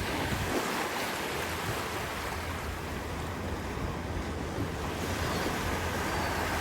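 Ocean surf washing and breaking on the beach, a steady rushing noise, with wind buffeting the microphone.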